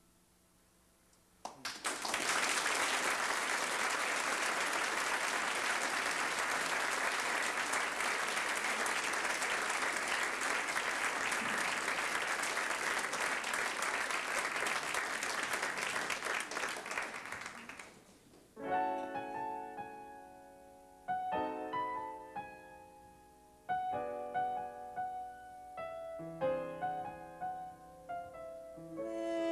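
An audience applauding after a song ends, the clapping starting about a second and a half in and fading out after about sixteen seconds. Then a grand piano plays slow chords, each struck and left to ring, opening the next song.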